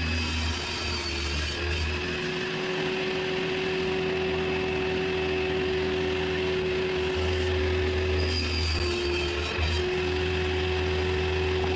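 Jigsaw motor running steadily with a constant whine, its pitch dipping briefly about eight and a half seconds in.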